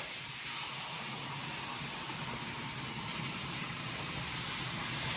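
Model train running along the track: a steady hiss of wheels on rails with a faint motor hum, slowly growing louder as it comes closer.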